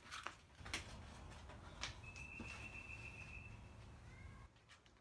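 Faint crinkles and taps of blue sheet sandpaper being unrolled and folded around a wooden paint stick to make a sanding block. A thin, steady high tone sounds for nearly two seconds near the middle.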